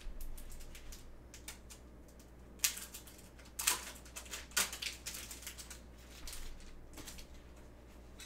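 Trading card packs and cards being handled, giving a run of small clicks and rustles. Three louder snaps come near the middle.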